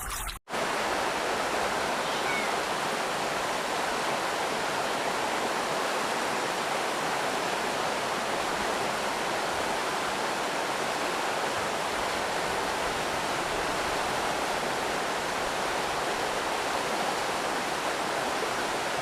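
Steady rush of flowing water, an even hiss that follows a brief dropout about half a second in.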